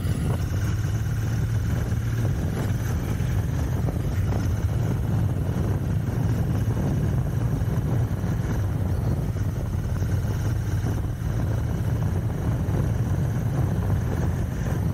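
Royal Enfield Continental GT 650's 648 cc parallel-twin engine running steadily while the bike is ridden along, heard from the rider's position. It is a new engine still being run in.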